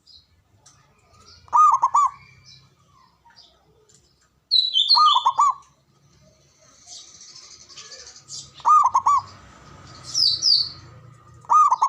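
Zebra dove (perkutut) cooing in short phrases of a few quick notes, repeated about every three seconds, four times. Fainter high chirps from other small birds come in between.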